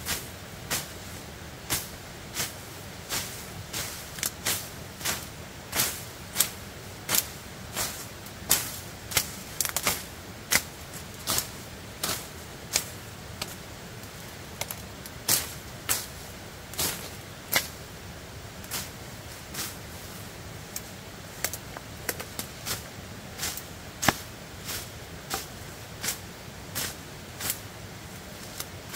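A long series of sharp knocks or chopping strikes, fairly regular at about one and a half a second, some coming in quick pairs, over a low steady hiss.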